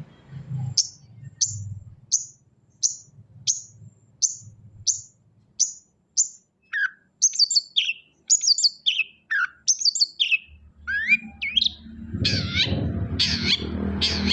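Long-tailed shrike (cendet) calling: a run of about nine short, sharp, high notes, each falling in pitch and evenly spaced less than a second apart, then a varied phrase of rapid, mixed chattering notes. A low background rumble comes in during the last few seconds.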